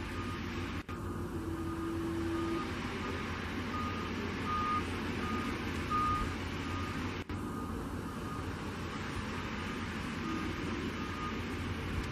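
Boeing 737-800's CFM56 jet engines running at taxi power: a steady rumble and hiss. Over it a vehicle's reversing alarm beeps about twice a second and stops near the end.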